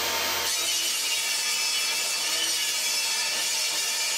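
Benchtop table saw running and ripping a sheet of plywood. About half a second in, the sound changes from the blade spinning free to a steady, dense cutting noise as the blade goes into the wood.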